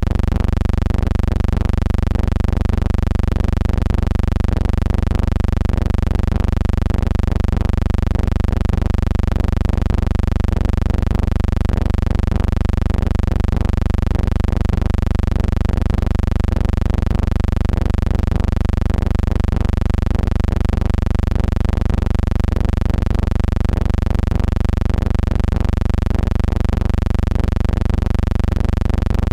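A steady, unchanging low hum with a buzz of overtones above it.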